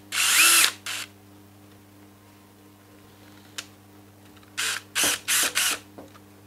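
Cordless DeWalt drill with a hex bit running in a short burst at the start, then four quick spurts about five seconds in, backing out a small Allen screw.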